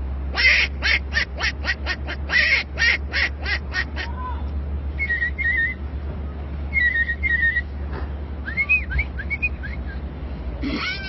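A man imitating a duck with his voice, a rapid run of short quacks for about four seconds, followed by imitated bird chirps in short pairs and a few whistled gliding notes.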